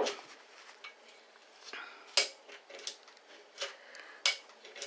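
Scattered clicks and clacks of small metal and plastic RC-truck parts being handled and fitted together while reassembling the rear hub and universal dogbone. The sharpest clacks come right at the start and about two seconds in.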